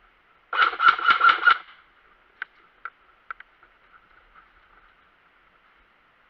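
Airsoft gun firing a short rapid burst of about seven shots, then a few faint single shots.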